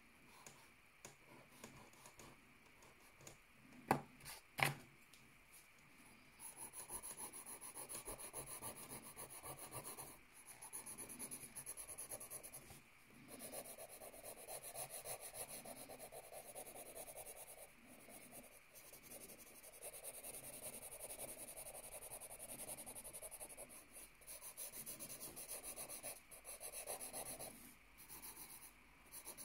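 Pencil shading on notebook paper: a faint, scratchy rubbing that starts about six seconds in and runs in long stretches with short breaks. Before it there are two sharp taps about four seconds in.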